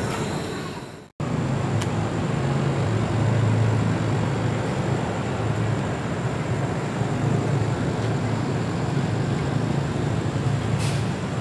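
Diesel railcar train running slowly along the platform, its underfloor diesel engines giving a steady low drone. There is a brief dropout about a second in and a short hiss near the end.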